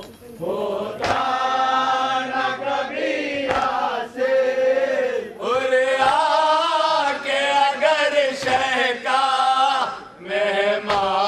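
A group of men chanting a nauha, a Shia lament, in unison. A chest slap of matam sounds about every two and a half seconds.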